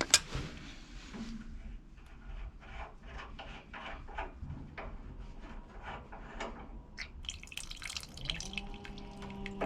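Water dripping irregularly from a radiator valve joint left under a little residual pressure, opening with a sharp click. Near the end the water runs more steadily, with a low hum setting in.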